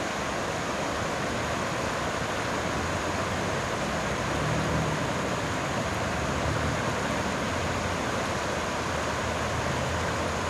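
Floodwater of a flash-flooding creek rushing past in a steady, dense wash of noise, with a low rumble that swells a few times.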